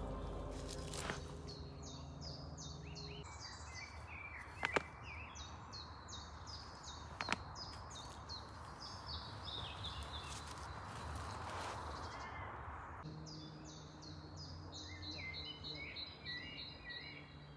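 Songbirds singing, quick runs of short high chirps repeated again and again over a soft outdoor hiss, with two sharp clicks about five and seven seconds in. Quiet background music fades out in the first few seconds and comes back faintly from about thirteen seconds.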